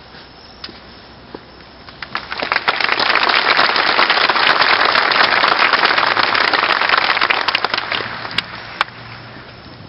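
Audience applauding: the clapping swells quickly about two seconds in, holds, then thins out near the end with a few last separate claps.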